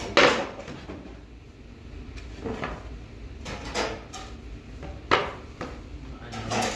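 White cabinet panels being handled, fitted and set down on a tiled floor during assembly. A sharp knock comes near the start and another about five seconds in, with lighter knocks and scrapes between them.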